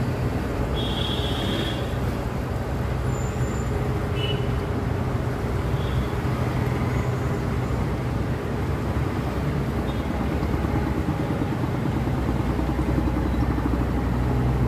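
Steady low engine drone over a continuous noisy rumble, swelling slightly near the end. A few faint short high chirps sound about a second in and again about four seconds in.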